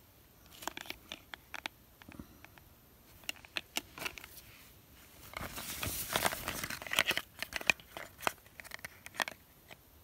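Crinkling and rustling with sharp little clicks as small cardboard sample boxes and a zippered cosmetics pouch are handled, with a longer, denser rustle between about five and seven seconds in.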